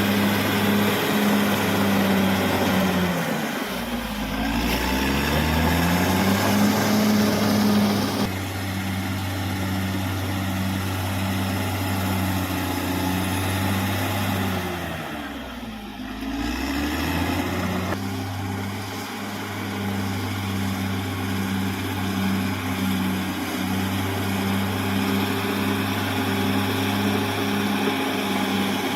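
D6R XL bulldozer's diesel engine running steadily with a throb about once a second. Twice its revs sag and then climb back, about four seconds in and again at about sixteen seconds.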